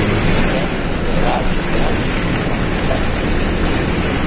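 Caio Apache Vip 4 city bus under way, heard inside the cabin: a steady low engine rumble mixed with road noise.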